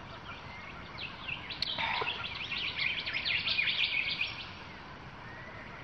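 A bird calling in a burst of rapid, busy chirps that starts about a second in and stops after about three seconds, over a faint steady background hiss.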